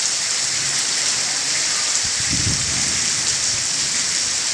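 Heavy rain falling steadily: a dense, even hiss of drops on surfaces.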